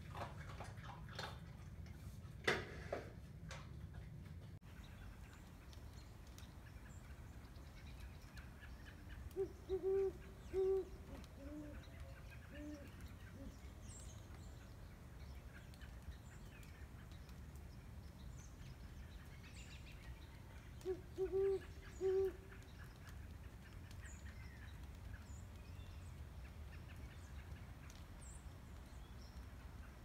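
Great horned owls hooting: a bout of three deep hoots about ten seconds in, followed by a few fainter, lower hoots, then another bout of three about twenty-one seconds in. A few sharp taps come in the first few seconds.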